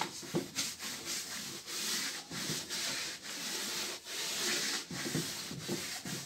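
Chalk being wiped off a blackboard by hand: repeated hissy rubbing strokes across the board's surface.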